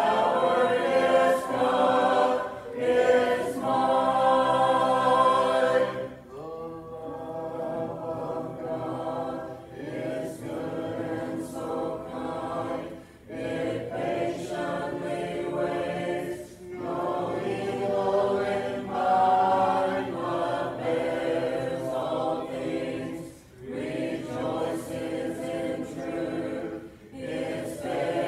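A congregation singing a hymn a cappella, with no instruments, following a song leader. The singing is louder for the first six seconds or so, then carries on more softly in phrases a few seconds long.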